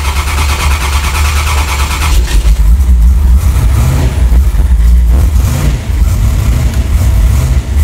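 Chokeless, Holley-carburetted LT1 small-block V8 on a cold start: the engine catches about two seconds in and then runs loud, its revs rising and falling as the throttle is worked to keep it from stalling.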